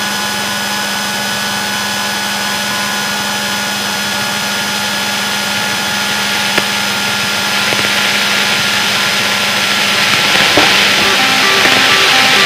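Piper Warrior's four-cylinder engine at low power, heard inside the cabin during the landing flare: a steady drone with a steady hum. A rushing hiss of air grows louder over the last few seconds.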